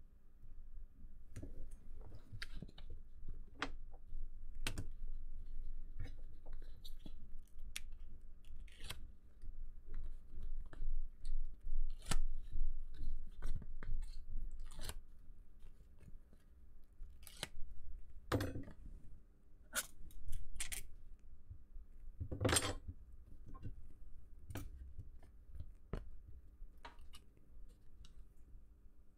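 Hands handling adhesive tape and thin plastic film on an E-Ink display panel: scattered rustles, crinkles and small clicks. Two longer, louder peeling or tearing rustles come past the middle.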